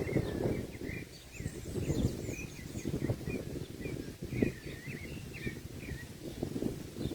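Small birds chirping and twittering in a quick run of short notes, over a low, fluttering rumble.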